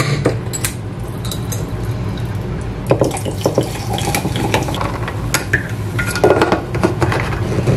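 A bottle opener pops the crown cap off a glass bottle of Topo Chico sparkling mineral water, then the sparkling water is poured into a tumbler. Near the end comes clinking as a lid and straw are fitted onto the tumbler.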